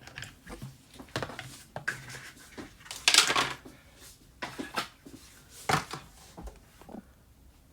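Cardboard packaging and paper manuals being handled: scattered taps and clicks, with a louder rustle about three seconds in.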